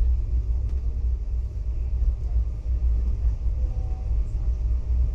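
Passenger train running at speed, heard from inside a coach through a closed window: a steady, deep rumble.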